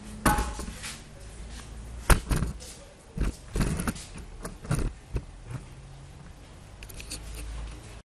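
Several irregular knocks and thumps, the loudest about two seconds in, over a low rumble.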